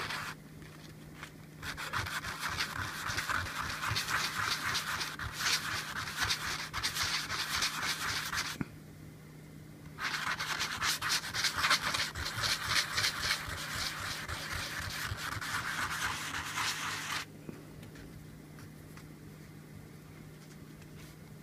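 Tobacco pipe bowl rim rubbed back and forth on a sheet of 220-grit sandpaper to top it: two long spells of quick scratching strokes with a pause of about a second and a half between them.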